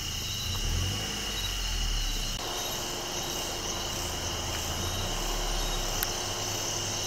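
Steady shrill chorus of night crickets and other insects, with a low engine rumble underneath from an idling vehicle. The rumble changes about two and a half seconds in, and a faint click comes about six seconds in.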